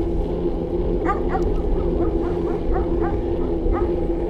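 An animal gives short repeated yelps, about eight in three seconds, starting about a second in, over a steady low rumble and hum.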